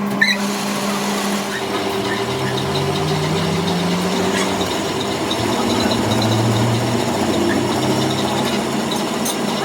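A machine running steadily, with a hum that drifts slightly in pitch.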